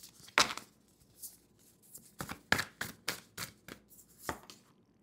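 A deck of tarot cards being shuffled by hand: about a dozen sharp, irregularly spaced snaps as cards are dropped onto the pile, stopping near the end.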